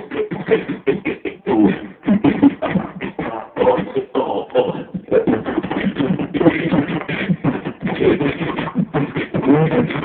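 Beatboxing into handheld microphones: a fast, unbroken run of percussive mouth sounds mixed with short pitched vocal noises.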